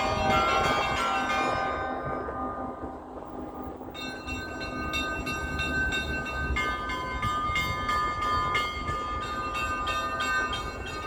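Orthodox church bells of St. Isaac's Cathedral ringing, many overlapping bell tones. The ringing dies away over the first few seconds, then a fresh round of strikes starts about four seconds in and keeps going. A low rumble runs underneath.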